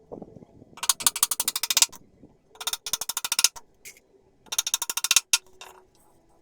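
Three bursts of rapid mechanical clicking from a woodworking tool, each about a second long, with short pauses between.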